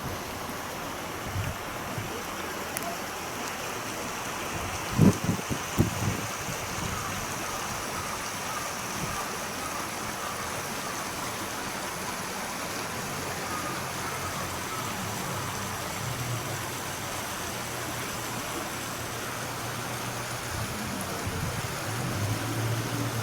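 Stream water babbling steadily, with a few brief low thuds about five seconds in.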